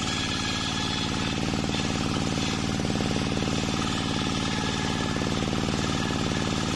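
Homemade engine-driven circular saw bench ripping a waru wood beam lengthwise: the blade cuts steadily through the timber over the rapid, even running of the engine that drives it by belt.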